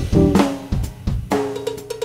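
Jazz drum kit played with sticks: snare, bass drum and cymbal strokes in a busy pattern, over held bass guitar and guitar notes from a latin jazz trio.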